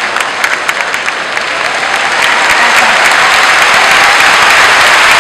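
Large arena crowd applauding, a dense spread of hand claps that swells louder about two seconds in.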